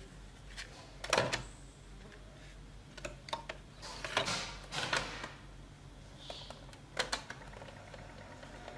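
Plastic clicks and clatter of a Sony portable cassette recorder being loaded with a homemade Bluetooth cassette adapter: the cassette door and cassette clack in the middle, and a sharp click near the end as the play key goes down.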